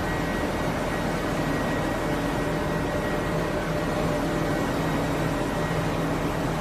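Steady hum of factory machinery running, with a few faint held tones over an even noise.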